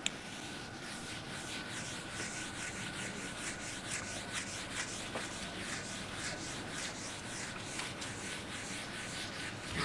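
Writing on a board: a steady run of short, scratchy strokes, several a second, as a sentence is written out.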